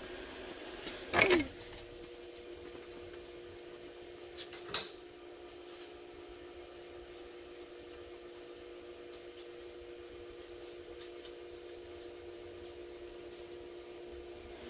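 Steady hum of a large repair shop, broken about a second in by a short scraping clatter that slides down in pitch and, just before five seconds, by one sharp knock, typical of a wheel or tool being handled.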